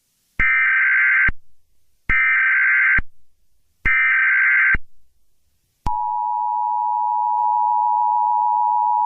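Emergency Alert System header: three short, identical bursts of SAME data tones, each a harsh electronic screech just under a second long, then about six seconds in the steady two-tone EAS attention signal begins. Together they announce the start of a weather alert broadcast, here a flood advisory.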